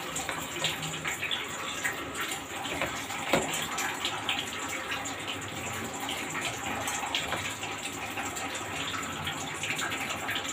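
Curry broth boiling hard in a pan on an induction cooktop: a steady bubbling with many small pops.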